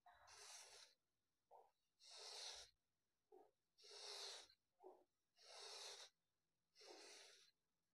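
Kinetic sand being crushed and scooped with a metal ball-ended tool: five faint, soft crumbling hisses, each lasting under a second, about every one and a half seconds, with small ticks between them.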